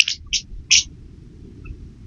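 Squirrel making three short, high-pitched squeaks in the first second, followed by a couple of faint ticks.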